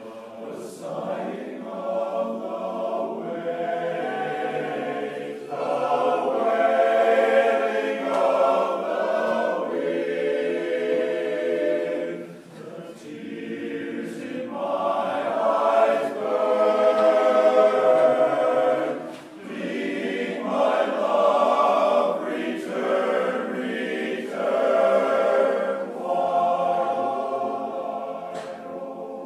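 Men's barbershop chorus singing a cappella in close harmony, in long phrases that swell and ease off, with two brief dips between phrases.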